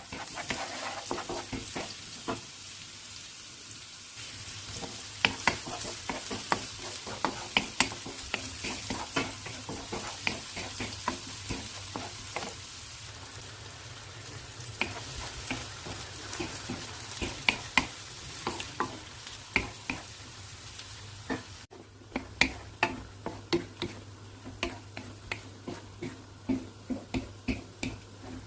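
Chicken sizzling in a frying pan while a utensil stirs it, with frequent sharp clicks and scrapes of the utensil against the pan. About three-quarters of the way through, the sizzle suddenly drops much quieter while the clicking carries on.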